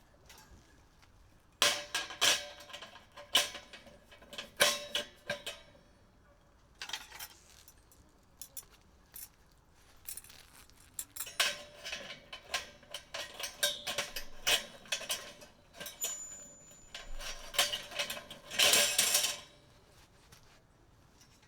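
Objects being handled: a run of clinks, knocks and clatters, some with a faint metallic ring, and a longer clattering rustle about nineteen seconds in.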